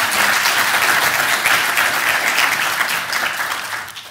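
Audience applauding in a lecture theatre, the clapping dying away near the end.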